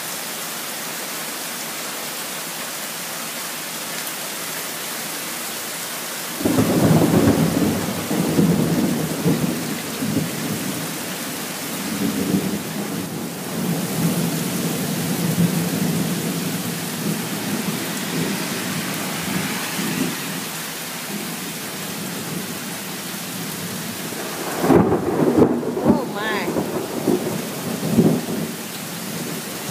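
Heavy rain pouring steadily. About six seconds in, thunder breaks out and rumbles on for many seconds, and a second loud peal of thunder comes near the end.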